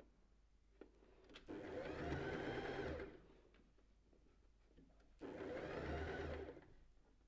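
Domestic sewing machine stitching the elastic-lined leg opening of a knit bodysuit in two short runs of about a second and a half each, speeding up at the start of each run and slowing to a stop. Faint small clicks come from handling between the runs.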